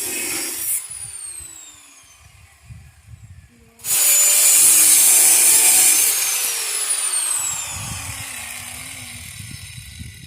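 A power cutting tool cutting through a worn door hinge pin. A short run of cutting dies away with a falling whine. About four seconds in it starts again, suddenly and loudly, and cuts for about two seconds, then the motor winds down with a long falling whine.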